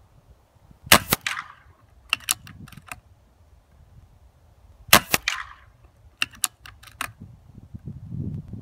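Two sharp shots from a BSA R10 MK2 regulated pre-charged pneumatic air rifle, about four seconds apart, each with a short ringing tail. A few lighter clicks follow each shot.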